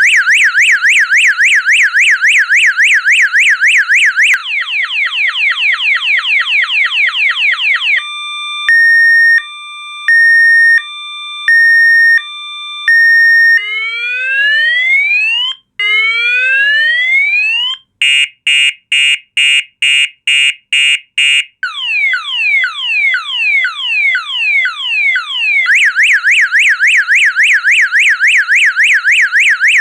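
Mystery Chameleon CS-30-6 car alarm siren sounding loudly and cycling through its tones. It goes from a fast up-and-down warble to a run of falling sweeps, then a two-tone hi-lo changing about once a second. Rising whoops and rapid beeping follow, then falling sweeps, and the fast warble returns near the end.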